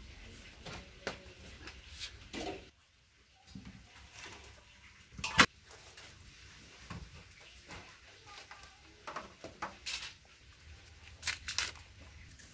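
Scattered knocks and rustles of freshly dug cassava roots being taken out of a woven basket and set down on a tiled floor, with one sharp knock about five seconds in, the loudest.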